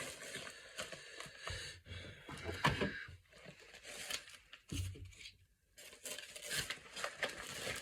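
A mail-order package being torn open by hand: irregular tearing and crinkling of the packaging, in short bursts with brief pauses.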